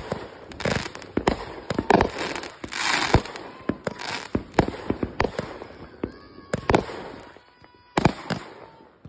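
Consumer aerial fireworks bursting in quick succession: loud bangs from the shells, with crackling between them. The bangs thin out for a moment near the end, then a last pair goes off.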